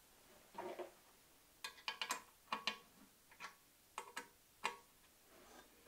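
A soft shuffle, then about a dozen light, sharp clicks and taps at uneven spacing as hands handle and adjust the metal table of a Metabo BAS 261 bandsaw.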